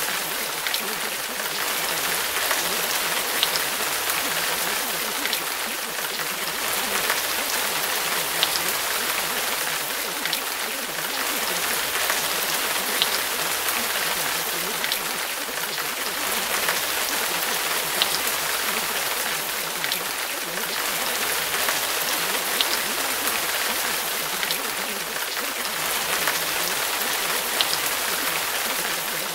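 Steady rain sound, a recorded rain track, with occasional faint drop ticks every couple of seconds.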